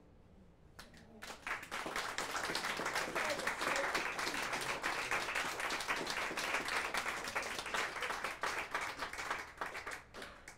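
Audience applauding: the clapping starts about a second in, swells quickly, holds steady and dies away near the end.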